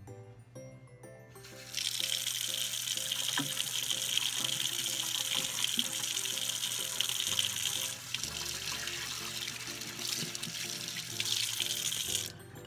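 Kitchen tap running into a sink: water comes on suddenly about two seconds in and stops near the end, with hands wetting a bar of soap under the stream. Background music plays underneath.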